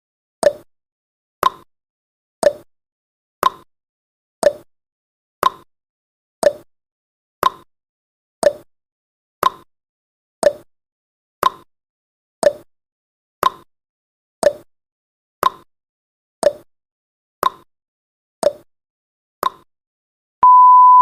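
Countdown timer's clock tick sound effect, one short tick every second. Near the end the ticking stops and a steady electronic beep starts, the alarm for the countdown reaching zero.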